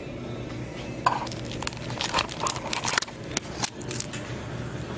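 A quick run of clicks, knocks and clinks of hard objects being handled, starting about a second in and stopping about four seconds in.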